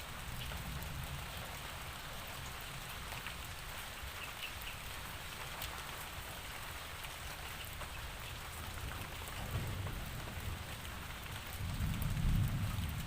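Steady rain falling, a continuous hiss with the patter of individual drops. A low rumble of thunder swells briefly past the middle, then more strongly near the end.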